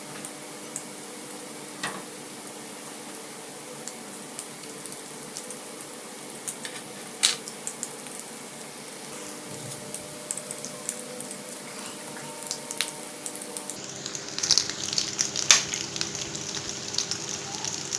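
Breadcrumb-coated chicken and potato bread rolls deep-frying in hot oil, a steady sizzle with scattered sharp pops. About fourteen seconds in the sizzle turns louder and denser, with much more crackling.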